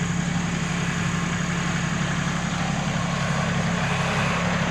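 Kubota L3901 tractor's diesel engine idling steadily, a low even hum.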